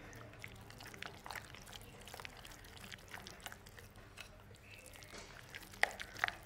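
A spoon stirring thick semolina and gram-flour batter in a glass bowl: faint, irregular light clicks of the spoon against the glass, with a few sharper clinks near the end.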